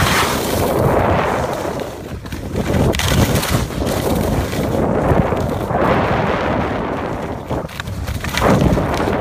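Wind buffeting a phone microphone carried down a ski slope at speed, with the hiss and scrape of sliding on snow. It is loud and rises and falls in several surges.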